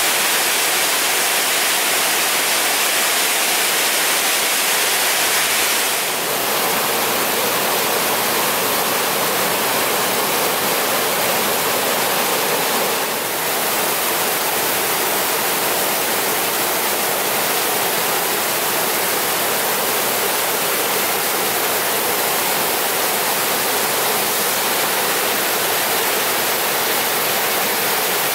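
Rockway Falls and the stepped cascades below it: a steady rush of falling water whose tone shifts slightly twice, about six and thirteen seconds in.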